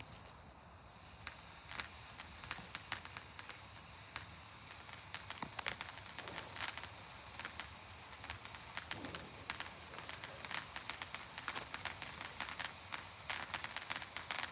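A lit firework burning with a high fizzing hiss and many sharp crackling pops, getting louder about four seconds in.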